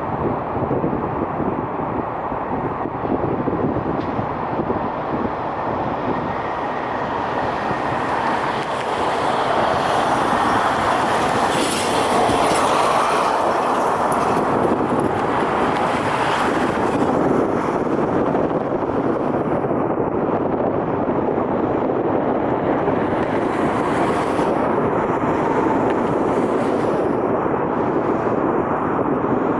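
Jet airliner engines running, a loud steady rush that swells a little around the middle.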